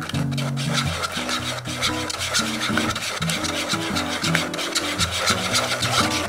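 Wooden spatula scraping rapidly against a fine wire-mesh sieve as raw eggs are beaten and worked through it, in quick, continuous strokes over background music.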